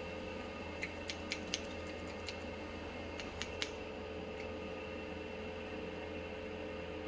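Small trimming scissors snipping off leaves, four quick snips followed a couple of seconds later by three more, over a steady fan hum.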